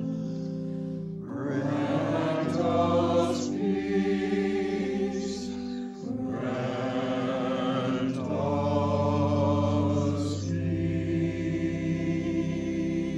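A communion hymn sung in phrases over sustained held accompaniment chords, with short breaths between the lines.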